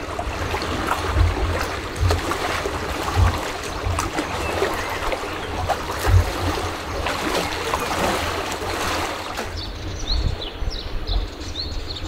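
Water trickling and lapping at the lakeshore, with wind buffeting the microphone in low thumps. The water sound fades about nine and a half seconds in, and small birds start chirping in quick, repeated high notes.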